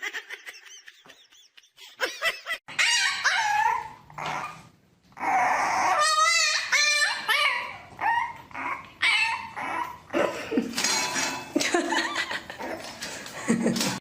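A dog whining and yipping: a string of short, high calls that rise and fall, one with a wavering quaver, broken by a brief pause about a third of the way in.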